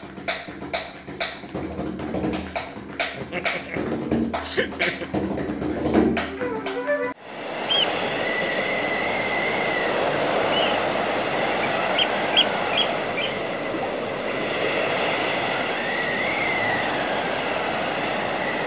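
A bodhrán played in quick, uneven strokes, cut off suddenly about seven seconds in. Then comes a steady rushing noise of gale-force wind with a few high whistles that rise and fall.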